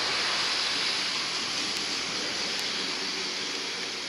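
Lockheed C-130 Hercules's four turboprop engines at takeoff power during its takeoff run: a steady rushing propeller and engine noise that slowly fades as the aircraft moves away.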